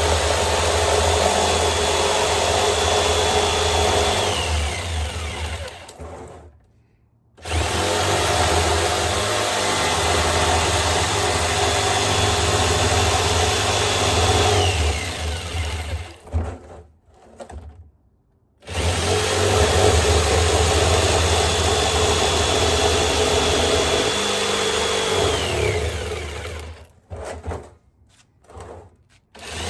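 Electric jigsaw cutting through the top of a 55-gallon barrel, run in three long bursts. Each burst ends with the motor's whine dropping in pitch as the trigger is released, with short pauses between.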